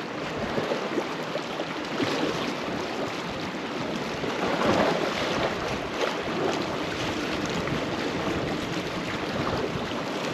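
Sea waves washing and splashing against a rocky shore, with wind buffeting the microphone; the wash swells louder about halfway through.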